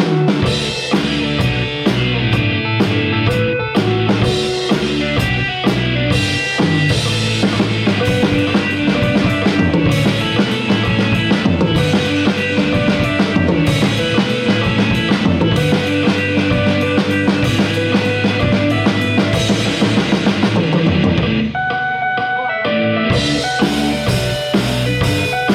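A drum kit, with kick, snare and cymbals, playing a rock song along with electric guitar. About 21 seconds in, the drums and cymbals stop for a second and a half while the guitar carries on, then the kit comes back in.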